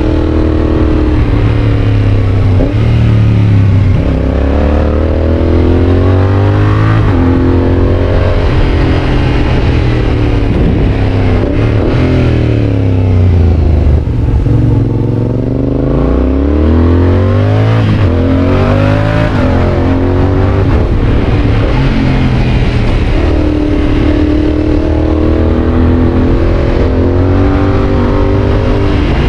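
Yamaha Tracer 7's 689 cc parallel-twin engine through a GPR aftermarket exhaust, pulling hard up through the gears. The pitch climbs and drops at each quickshifter upshift, and falls away once on the overrun before climbing again.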